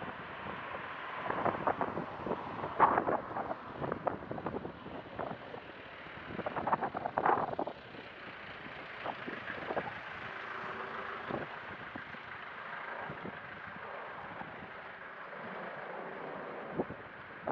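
Wind buffeting the microphone over a steady outdoor hiss, in gusts of short rough bursts: a cluster a second or two in and another around the middle, then calmer.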